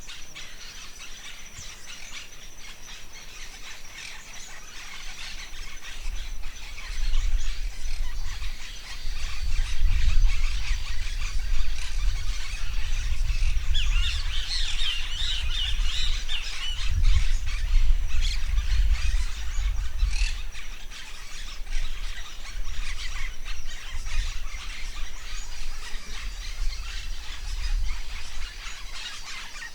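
Forest birds chirping and calling throughout, over a steady high-pitched tone. A low rumble of wind buffeting the microphone comes in a few seconds in, swells in gusts and dies away near the end.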